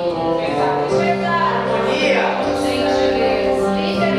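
Live music with several voices singing, holding long notes that overlap.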